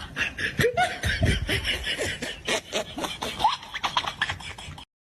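People laughing in quick, repeated bursts, which cut off suddenly near the end.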